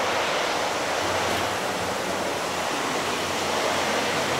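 Steady running noise of Lionel O gauge model trains rolling on their track.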